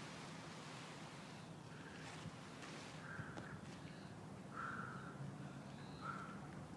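A bird giving short calls again and again, about every second and a half, over a steady low hum.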